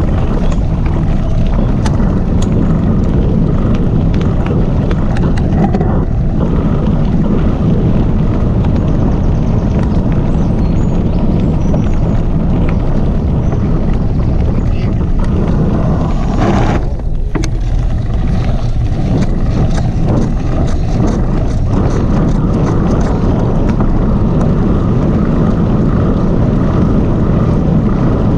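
Calibre Bossnut mountain bike riding fast down a gravel woodland track: steady tyre rumble and wind on the microphone, with frequent small clicks and rattles from the bike over bumps. The noise briefly eases a little past halfway through.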